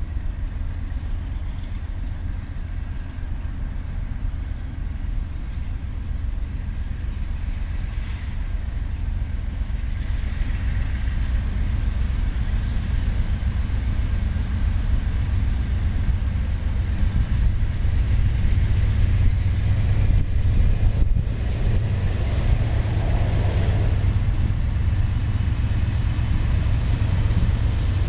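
Low, steady rumble of an approaching diesel freight train led by a Norfolk Southern AC44C6M locomotive, heard from afar and slowly growing louder.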